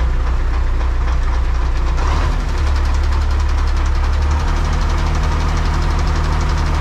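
Belarus MTZ-82 tractor's diesel engine running steadily, heard from inside the cab. Its note shifts about two seconds in and settles back a couple of seconds later.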